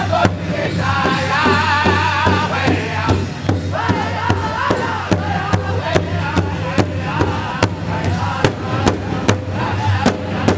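Powwow drum group striking a large shared powwow drum in a steady beat, about two and a half beats a second. Men's high group singing rides over the beat through the first half.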